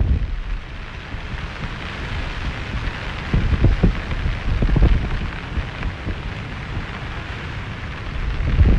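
Gusty monsoon wind rumbling on the phone's microphone in low surges, strongest about three and a half and five seconds in, over a steady hiss of rain and wind-tossed trees.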